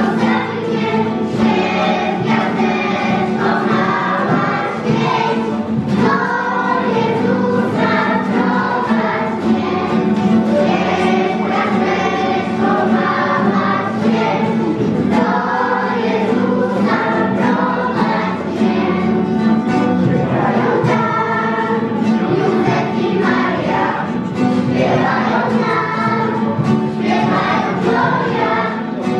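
Children's choir singing a Polish Christmas carol (kolęda) together, accompanied by acoustic guitar.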